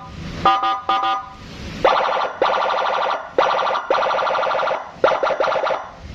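Senken 100-watt electronic police escort siren (CJB 100BD) sounding through its horn speaker and cycling through its tones. It opens with short chirping bursts, switches to a fast warbling yelp of quick rising pulses about two seconds in, and goes back to chirps near the end.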